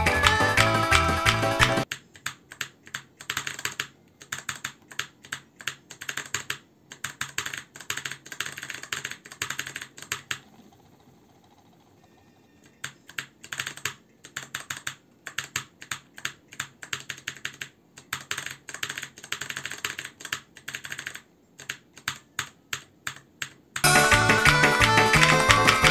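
Typing on an Altec Lansing ALGK8614 mechanical keyboard with blue switches: rapid clicky keystrokes in runs, with a pause of about two seconds midway. Music plays for the first two seconds and comes back near the end.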